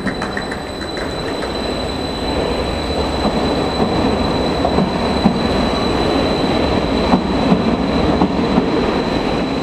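Passenger train pulling out of a station: a steady rumble of wheels on rails with a thin, high, steady whine over it, and a few clicks from the wheels later on.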